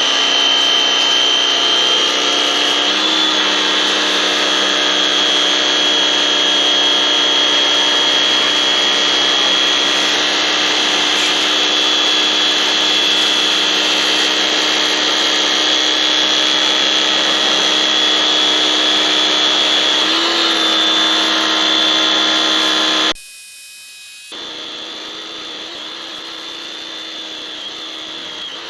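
Pressure washer running and spraying, a steady loud hiss over a constant high whine from its motor and pump. It cuts out abruptly about 23 seconds in, then carries on more quietly.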